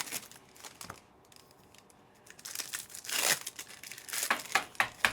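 Foil trading card pack wrappers crinkling and tearing as packs are opened by hand, in short bursts with a quiet pause after about a second, the loudest rustle about three seconds in and a few sharp crackles near the end.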